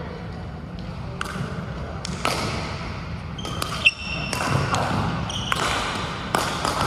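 Badminton play in a large echoing sports hall: a series of sharp racket strikes on the shuttlecock, roughly one every second, with a brief sneaker squeak on the court floor, the loudest moment, a little past halfway.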